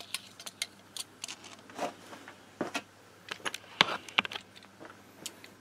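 Light, irregular clicks and knocks of a metal moped kickstand being handled and set down on a wooden workbench, the loudest a little before four seconds in.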